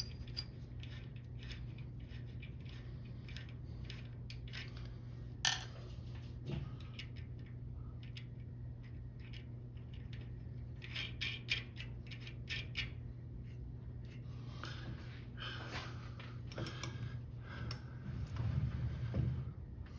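Light metallic clicks and clinks as a small part and tools are handled at a stopped metal lathe, with one sharper click about five and a half seconds in, over a steady low hum.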